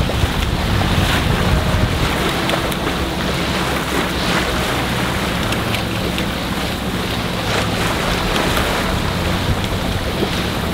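Wind buffeting the microphone and water rushing along the hull of a motor-sailing sailboat, over the steady low hum of its engine.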